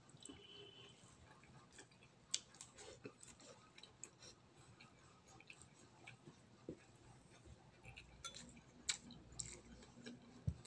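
Faint chewing and wet mouth clicks of a man eating cooked octopus and rice by hand, with scattered small ticks.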